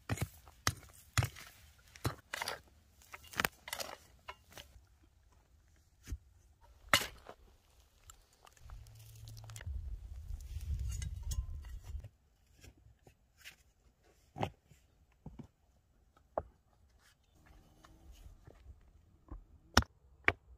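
Stones knocking and crunching as rocky ground is dug and flat stones are stacked into a dry-stone wall: scattered sharp knocks and clinks, with a low rumble lasting about three seconds near the middle.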